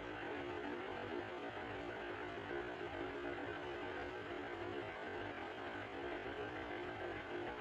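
Steady electrical hum with a hiss underneath, unchanging throughout.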